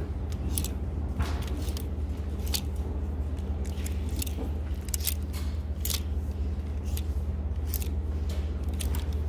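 Plastic clothes hangers clicking and scraping along a clothing rack rail as garments are slid aside one after another, in irregular clicks, over a steady low hum.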